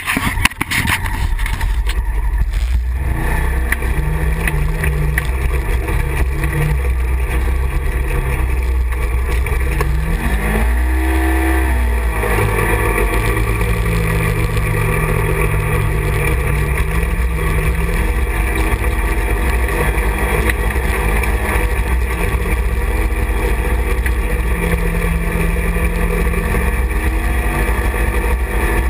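Side-by-side UTV engine running as the vehicle drives, heard from inside its open cab, a steady low drone. About ten to twelve seconds in, the engine pitch rises and falls again.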